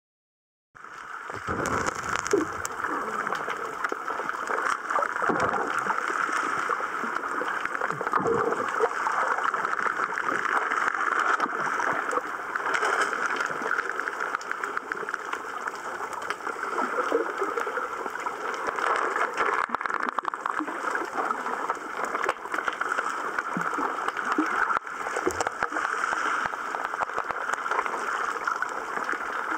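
Shallow seawater heard underwater through a waterproof compact camera's microphone. A steady rushing water noise starts abruptly about a second in, with scattered low gurgles and sloshes.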